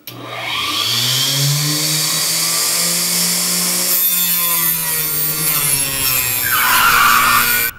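Harbor Freight 4-inch Mighty Mite mini table saw running, its blade cutting through a small piece of MDF fed by hand. The motor comes up to speed over the first second, and a hissy cutting sound joins in about halfway through.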